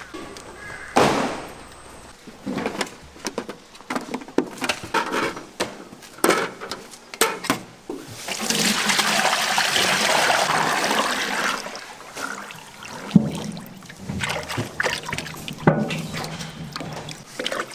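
Clattering and knocks of food-stall kitchen work, with a steady rushing hiss lasting about three seconds in the middle.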